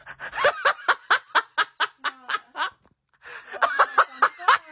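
A person laughing in quick, even bursts, about four or five a second: a run of about a dozen laughs, a short pause, then a second, shorter run.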